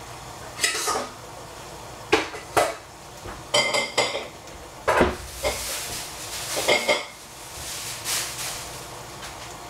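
Metal kitchenware clinking and knocking: a series of sharp clinks scattered through, one cluster a few seconds in ringing briefly, over a low steady hiss.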